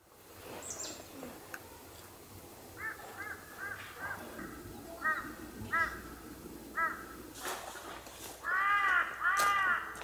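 Crows cawing: a series of short caws, then two louder, longer caws near the end.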